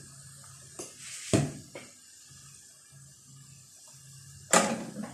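Kitchenware knocking: a sharp knock about a second in, then a louder, longer clatter of dishes or pots near the end.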